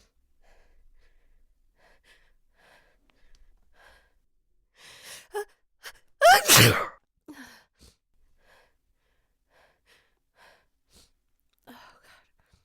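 A woman's loud, voiced sneeze about six seconds in, preceded by a gasping in-breath. Faint short breaths come before it, and shaky breaths follow.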